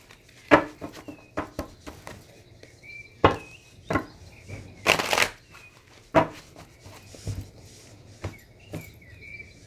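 A deck of oracle cards being shuffled by hand: irregular riffles, clicks and slaps of the cards, with a longer swish about five seconds in.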